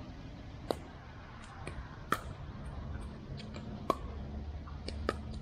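Pickleball rally: four sharp pocks of paddles striking the plastic ball, about a second and a half apart, with fainter clicks in between over a low steady rumble.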